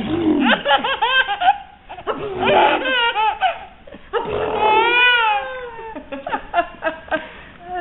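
A baby squealing and laughing in a string of short, high-pitched calls, with one longer squeal that rises and falls about four seconds in.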